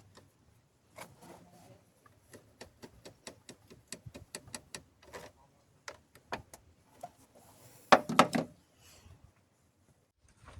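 Hand tools working on the bolts that hold a power steering fluid reservoir: a run of separate metallic clicks and knocks, with a louder clatter about eight seconds in.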